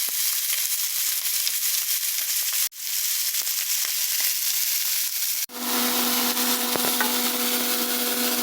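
Chicken drumsticks sizzling steadily in a hot pan with no added oil, frying in their own rendered fat. The sizzle breaks off for an instant twice, and a steady low hum joins it in the last few seconds.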